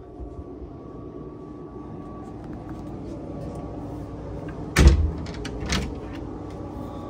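Wooden interior cabin door opened by its lever handle: one loud latch-and-door knock a little under five seconds in, then a smaller knock about a second later.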